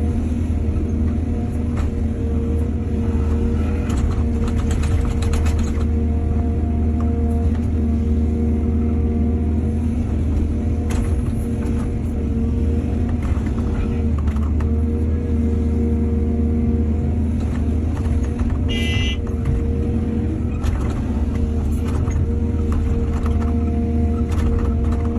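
Diesel engine of an excavator running steadily at working speed, with scattered clanks and knocks from the digging and loading. A short high-pitched tone sounds once, a little past the middle.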